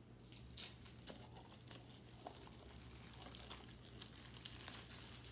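Faint crinkling and rustling of a foil blind-bag being handled and opened by hand, in short scattered crackles.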